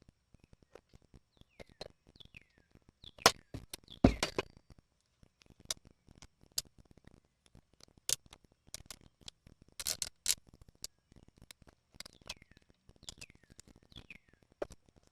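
Scattered clicks, taps and knocks of tools and chainsaw parts being handled on a workbench, with louder knocks about three and four seconds in and again around ten seconds. A few faint short squeaks fall in pitch between the clicks.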